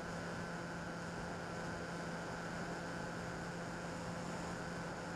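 Bixler 2 RC plane's electric pusher motor and propeller running at a steady pitch, heard from the onboard camera with a hiss of airflow. Steady drone with no change in throttle.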